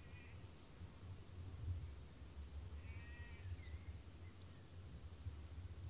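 Faint rural ambience: short bird calls near the start and again about three seconds in, with a few faint high chirps, over a low steady rumble.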